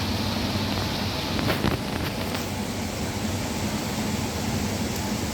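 Heavy rain falling in a steady hiss, with a low steady hum underneath and a few sharp taps about a second and a half in.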